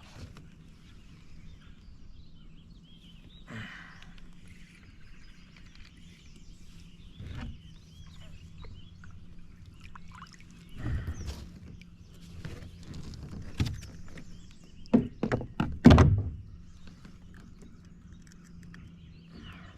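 Scattered knocks and thumps against a kayak as a hooked bass is brought in and landed. A quick run of several sharp thumps about fifteen seconds in is the loudest.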